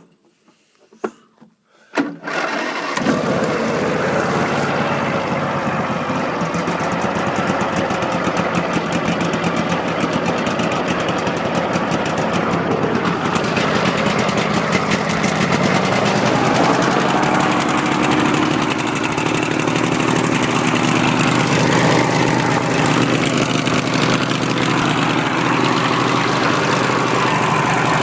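A 23 HP, 760 cc Briggs & Stratton Intek V-twin riding-mower engine starts, catching about two seconds in after a few faint clicks, then runs steadily.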